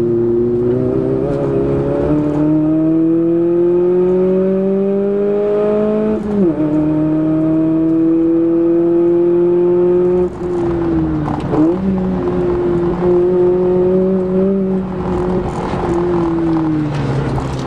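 Toyota Echo's 1.5-litre four-cylinder engine heard from inside the cabin, working hard on track: its pitch climbs steadily for about six seconds, drops sharply at a gear change, then climbs slowly again. Brief dips in the engine note come around ten and eleven seconds in and again near the end.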